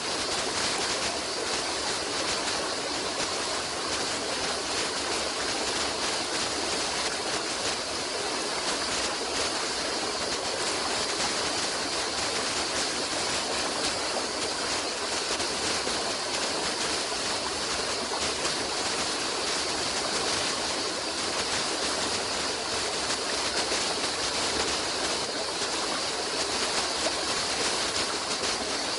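A stream of water running steadily, an unbroken hiss with no changes.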